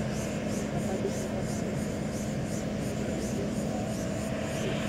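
Distant Boeing 777 jet engines at idle as the airliner taxis on the runway: a steady rumble and hum. A high chirp repeats about two to three times a second over it.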